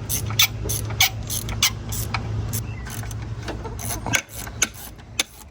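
Sharp, irregular metallic clicks of hand tools working the thermostat housing bolts loose on a Ford Crown Victoria. Under them runs a steady low hum that stops about four seconds in.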